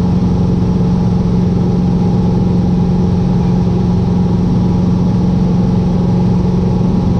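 Cessna 150's Continental O-200 engine and propeller running steadily in flight, a constant low drone heard from inside the cockpit.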